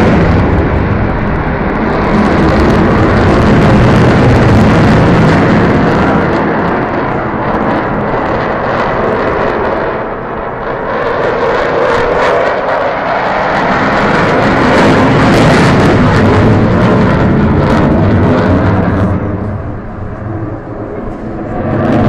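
Jet noise from a Eurofighter Typhoon's twin EJ200 turbofan engines, loud throughout. It swells and eases as the fighter manoeuvres, dipping about halfway through and again, more deeply, near the end before it rises once more.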